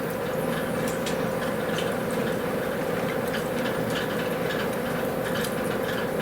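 Meat sizzling as it cooks over heat: a steady hiss with many small irregular pops and crackles.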